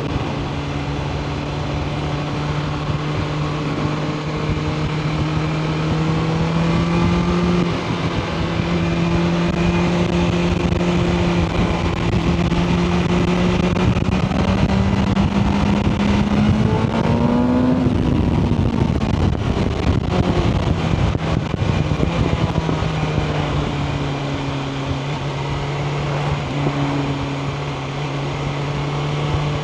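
Sport motorcycle's inline-four engine running on the road at steady throttle. Its pitch climbs slowly as the bike gains speed, then falls off sharply a little past halfway as the throttle closes, with a rush of wind and road noise. It then settles back to a steady cruise.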